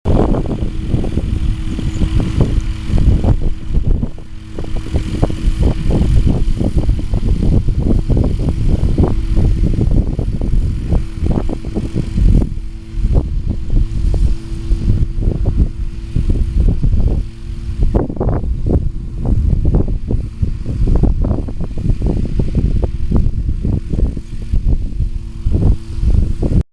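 Heavy wind buffeting the microphone in gusts, over the steady hum of a small engine running at a constant pitch.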